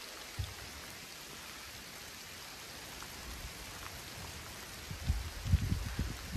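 Steady rain falling, an even hiss of drops, with a few low thumps on the microphone near the end.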